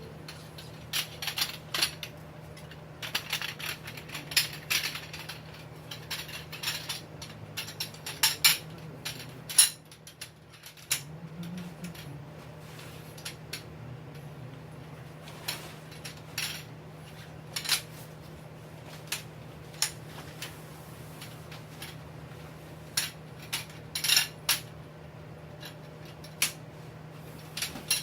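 Irregular metallic clinks and knocks of tent poles and fittings being handled, some sharp and loud, over a steady low hum.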